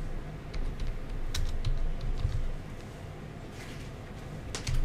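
Typing on a computer keyboard: an irregular run of key clicks, a pause, then a few more keystrokes near the end.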